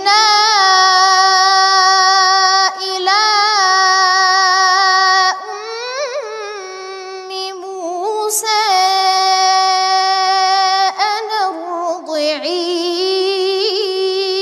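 A boy's voice reciting the Quran in a melodic, drawn-out chant, holding long ornamented notes with a wavering pitch in several phrases, with short pauses for breath.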